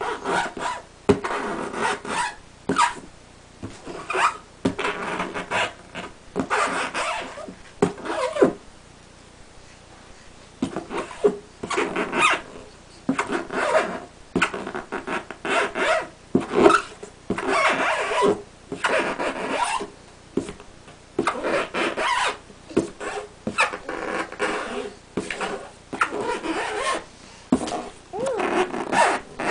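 A pet animal vocalizing in repeated raspy calls, each about half a second to a second long, with short pauses between them.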